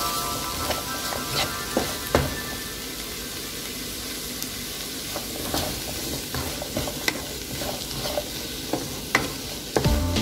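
Bitter gourd pieces sizzling in a nonstick pan while a wooden spatula stirs them, with a steady frying hiss and frequent irregular scrapes and taps of the spatula against the pan.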